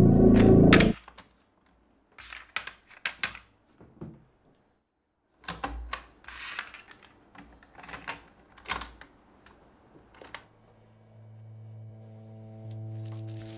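Mechanical clicks and clacks of a Sony handheld cassette recorder handled by hand, its cassette door shut and its keys pressed, in scattered bursts with a short pause between. Music stops about a second in, and soft sustained music fades back in near the end.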